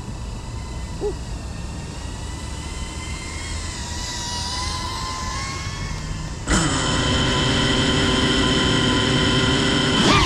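FPV quadcopter motors and propellers whining: a faint, slightly wavering whine that turns suddenly much louder about six and a half seconds in and holds steady.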